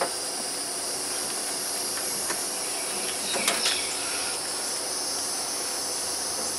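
Steady high-pitched insect chorus, with a cloth rag rubbing over the plastic hood of a lawn tractor to buff off polish, and a few light clicks.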